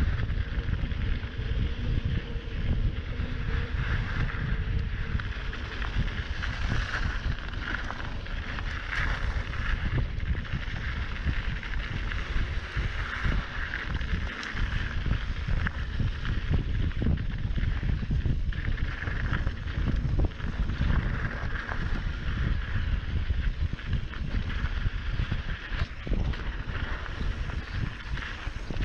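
Mountain bike riding fast over dirt singletrack, heard from a handlebar-mounted camera: steady wind rumble on the microphone, tyres rolling over loose dirt and gravel, and frequent knocks and rattles from the bike over bumps.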